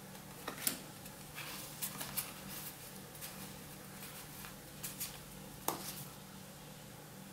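Playing cards from an Exploding Kittens deck handled and sorted by hand: faint, scattered slides and light flicks of card against card, a few at a time. A faint steady low hum sits underneath.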